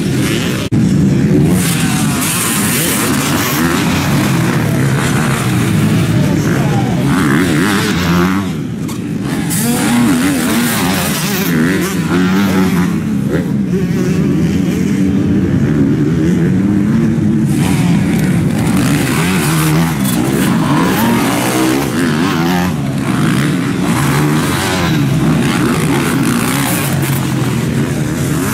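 Several motocross bikes racing past, their engines revving up and down one after another as they ride over a jump.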